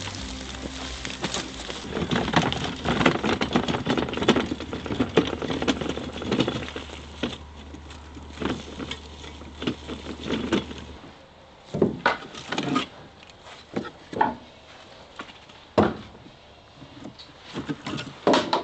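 Split firewood logs clattering and knocking against each other as they are handled and loaded into a plastic dump cart. A dense clatter for about the first ten seconds, then fewer, separate knocks as pieces are set down one at a time.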